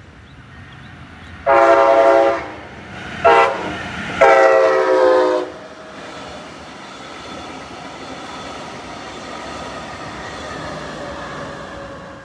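Brightline passenger train sounding its horn for a grade crossing: three blasts, long, short, then long. The train then runs past with a steady rumble of wheels on rail.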